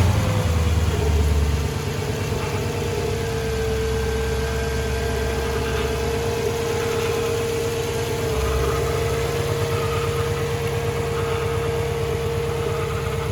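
Audi S4 V8 idling just after start-up, on its first run after a timing chain replacement. It runs a little faster and louder for the first second or two, then settles to a steady idle with a steady whine over it.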